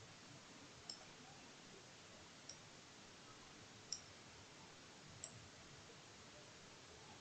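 Faint computer mouse clicks, four of them about a second and a half apart, over near-silent room tone.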